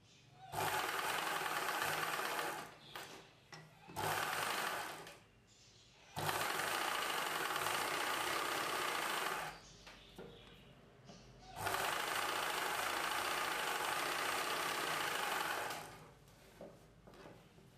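Domestic sewing machine stitching in four runs of a few seconds each, the longest about four seconds, with short pauses between them as the fabric is repositioned.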